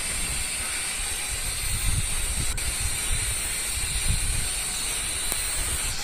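Angle grinder with a cutting disc running steadily while cutting a groove down a brick-and-mortar wall: a steady high whine over gritty hiss.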